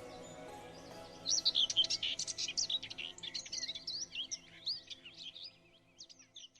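A bird's rapid twittering song, many quick high chirps and trills, over soft background music that fades away; the chirping thins out and stops near the end.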